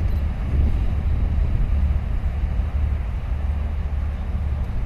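Steady low rumble of wind buffeting the microphone, with a large container ship under way close offshore.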